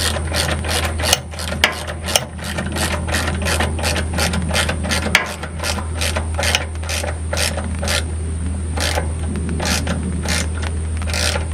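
Hand ratchet wrench clicking in a steady run, about two to three clicks a second, as a nylock nut is run down on a bolt.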